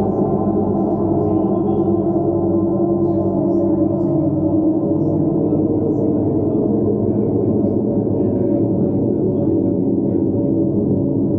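Steady ambient drone music: a dense wash of many held tones stacked together, with a metallic gong-like ring and no beat, at an even level throughout.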